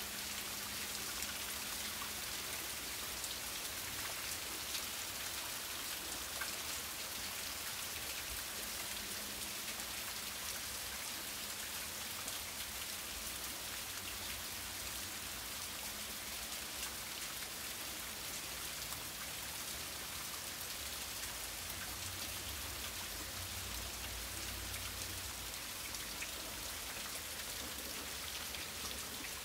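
Heavy, steady rain falling on a waterlogged yard: an even hiss with scattered ticks of drops landing close by.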